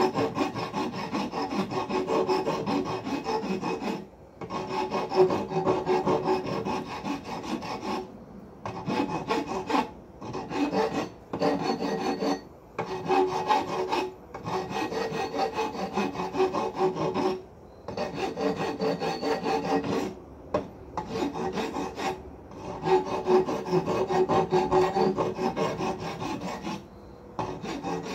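Hand file rasping across the cut end of a steel pintle bar clamped in a post vise, rounding it over. Runs of back-and-forth strokes are broken by short pauses every few seconds, and the steel rings with a steady tone under the file.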